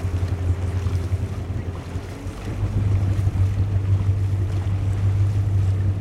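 Wind rumbling on the microphone over a boat moving on the water. The rumble is steady, with a brief lull about two seconds in.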